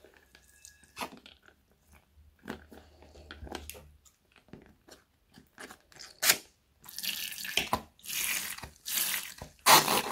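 Wet squelching, dripping and small crackles as a little plastic bag of clear liquid and beads is cut open and emptied into a glass bowl of slime ingredients. The sound turns into louder sharp wet splats from about seven seconds in.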